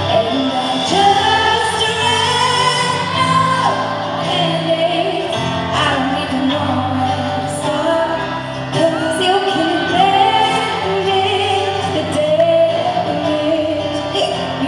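Live pop music: a woman singing a melody over a full band. Near the end the singer hiccups.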